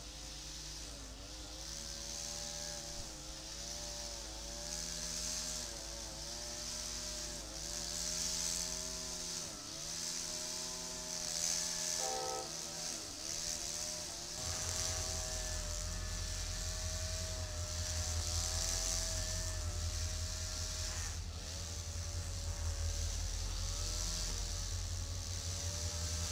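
CSX diesel locomotives running with an engine hum that rises and falls about once a second. A deeper low rumble comes in about halfway through as the locomotives draw close.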